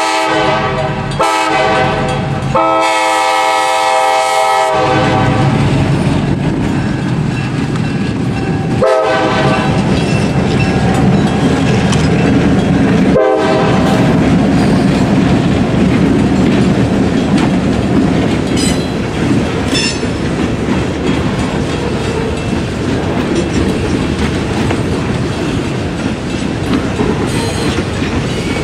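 EMD GP10 diesel locomotive's horn blowing several blasts, two longer ones in the first few seconds and then two short toots later. After the horn come the steady rumble of the passing freight train and its wheels clattering over the rail joints.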